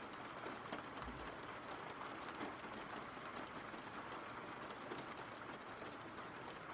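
Steady rain falling, a faint even patter of fine drop ticks.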